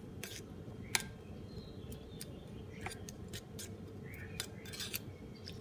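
Metal spoon stirring a thick chili dipping sauce in a ceramic bowl, making light irregular clicks as it taps and scrapes against the bowl. A faint steady hum runs underneath.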